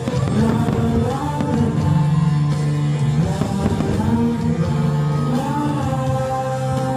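Background music: a pop song with long held melody notes.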